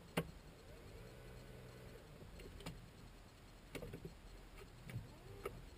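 Electric steering-column adjustment motor of a Porsche Panamera GTS running faintly for about a second as it moves the wheel, with a few light clicks around it.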